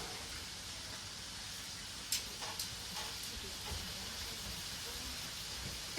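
Meat sizzling as it grills, a steady hiss with a few sharp clicks about two to three seconds in.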